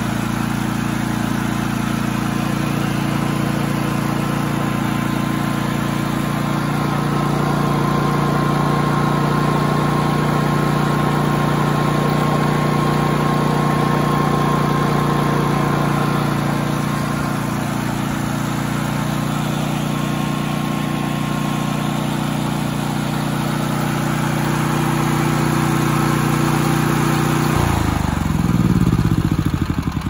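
Cummins Onan P4500i inverter generator's OHV engine running steadily after its no-spark fault has been cured. Near the end its note changes as it is shut down and begins to wind down.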